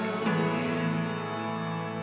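Instrumental music of held, sustained chords; the chord changes about a quarter second in.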